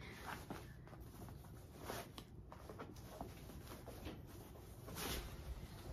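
Faint rustling of a cloth dust bag as a vegan-leather tote is slid out of it, with a few brief handling rustles, the loudest about five seconds in.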